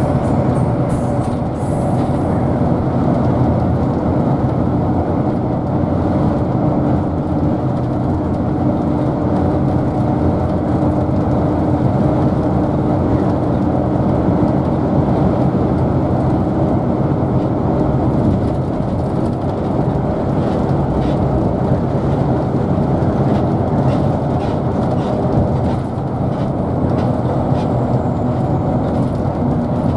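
Steady road and engine noise of a vehicle travelling at speed along a highway, an even rumble without breaks.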